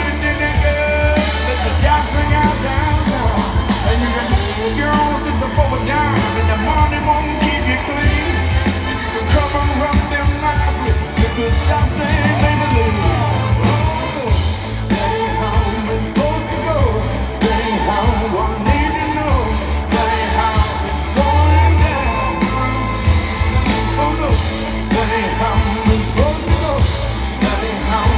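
Rock band playing live with a lead singer and electric guitars over heavy bass and drums, heard through a phone's microphone in a large hall.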